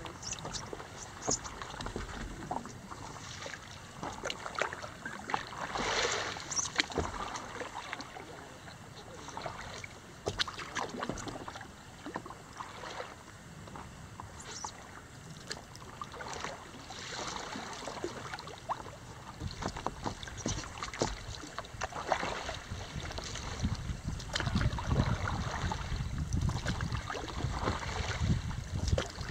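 Lake water splashing and lapping against a stand-up paddleboard's hull, in irregular slaps every couple of seconds over a steady wash. Wind buffets the microphone, more strongly near the end.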